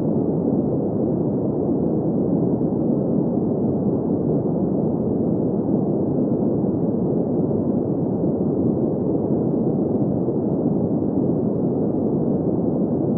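Steady green noise: an even, unchanging rush of sleep noise centred in the low-middle range, with little bass and no highs.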